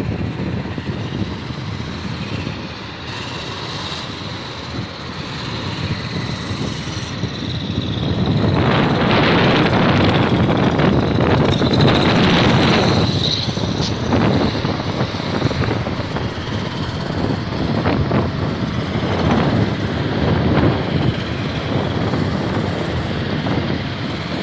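Armoured military vehicles, eight-wheeled armoured personnel carriers among them, driving past: a heavy engine and tyre rumble that swells about a third of the way in as vehicles pass close, with a brief high squeal about halfway through, then eases a little.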